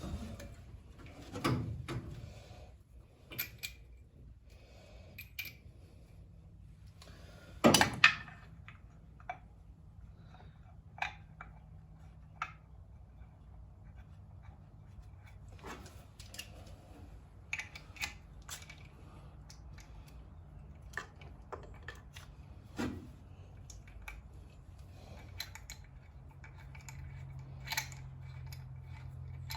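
Hand tools and metal parts being handled during engine work: scattered light metallic clicks and clinks, with a louder double clank about eight seconds in, over a faint steady low hum.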